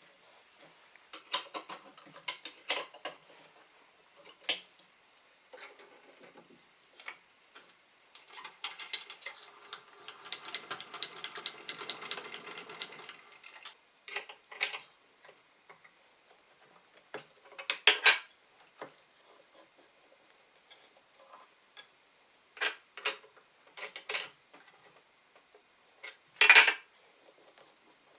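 Tools and small hard parts being handled on a workbench: scattered clicks and knocks, with a longer rattling stretch in the middle.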